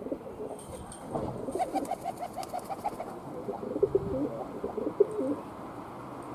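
Feral rock pigeon calling: a quick run of short cooing notes, then a second, more uneven run a second or so later.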